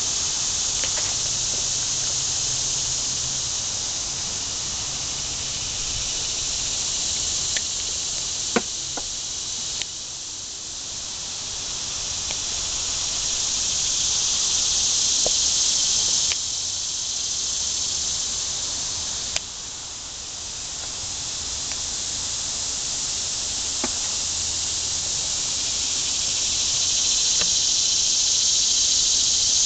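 Cicadas buzzing in a steady high-pitched chorus that fades twice and swells back, loudest near the end, with a few faint ticks.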